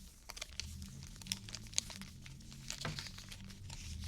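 Foil booster-pack wrappers crinkling as they are handled, with a run of sharp crackles.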